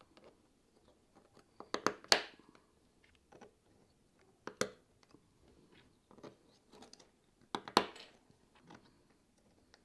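Small 3D-printed plastic rocket-engine nozzles being pressed into sockets on a 3D-printed model's base: sharp plastic clicks and snaps in three louder clusters a few seconds apart, with light handling ticks between.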